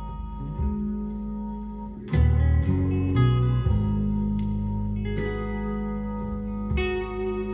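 Instrumental passage of a song, with guitar over sustained deep bass notes, played through a hi-fi system with a Technics SB-W500 passive subwoofer. A louder, bass-heavy stretch comes about two seconds in.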